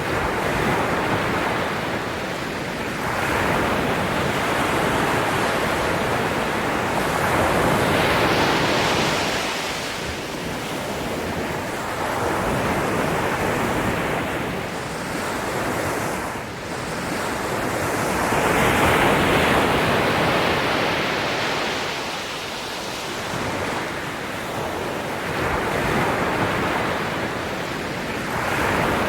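Ocean surf: waves breaking and washing in, swelling and falling back every several seconds, with two bigger swells about a third and two thirds of the way through.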